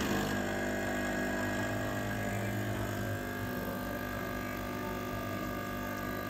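Espresso machine's pump running steadily while it extracts an espresso shot from an ESE paper coffee pod.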